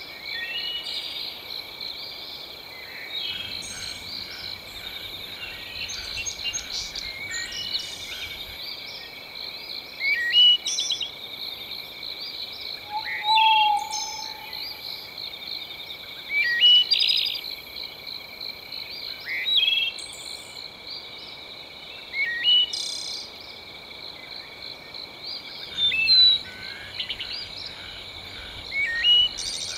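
Birds calling with short rising chirps and louder bursts every few seconds, over a steady pulsing chorus of insects or frogs.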